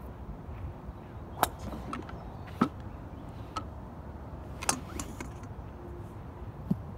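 Five sharp clicks or knocks, irregularly spaced, the loudest about one and a half and two and a half seconds in, over a steady low rumble.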